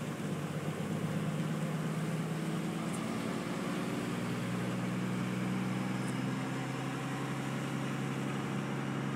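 A vehicle's engine running steadily, heard from inside the cab, as it drives through floodwater that washes along its sides. The engine note shifts a little about four seconds in.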